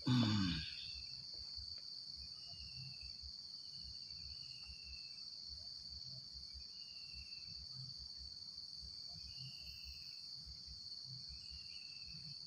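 Steady high-pitched drone of insects, with short fainter higher notes repeating every second or two. A brief low sound falling in pitch comes at the very start.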